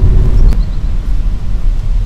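Low, steady rumble of a car in motion heard from inside the cabin, with a single sharp click about half a second in.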